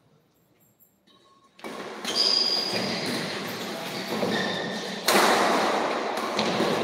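Badminton shoes squeaking on the court during a doubles rally, over crowd noise in a large hall. The sound starts about a second and a half in and gets louder about five seconds in.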